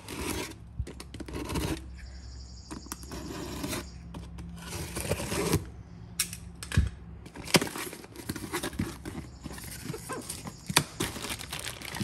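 Utility knife cutting the packing tape on a cardboard box, with tearing and scraping, several sharp clicks, and the cardboard flaps pulled open.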